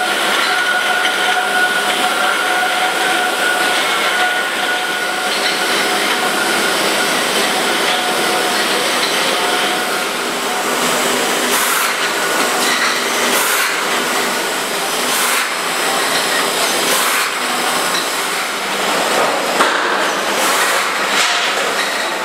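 Beer bottling line running: a dense, steady mechanical noise from the bottle conveyor and rotary filler and capper, with a faint high whine in the first few seconds and repeated short sharp sounds through the second half.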